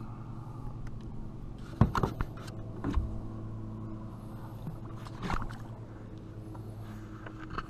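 A few sharp knocks and splashes at the boat's side as a blue catfish is held at the water's surface and let go, the loudest about two seconds in. A steady low hum runs underneath.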